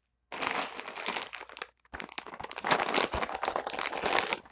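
Plastic packaging crinkling and rustling as it is handled, in two long stretches with a short pause just before the halfway point.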